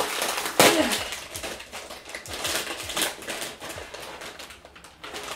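Lay's potato chip bag being pulled open and handled, its foil-lined plastic crinkling in irregular crackles, loudest about half a second in.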